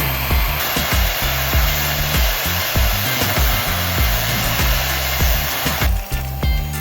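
Angle grinder running steadily with a CD disc fitted, giving a continuous hiss, over background music with a steady beat. The grinder noise cuts off about six seconds in, leaving the music.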